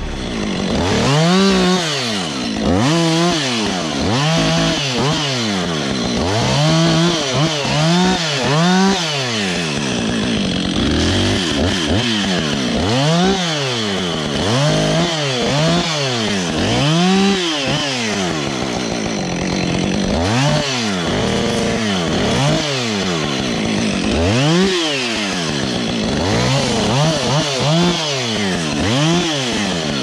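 Two-stroke chainsaw limbing a felled red pine, the engine revving up and dropping back about once a second as each branch is cut.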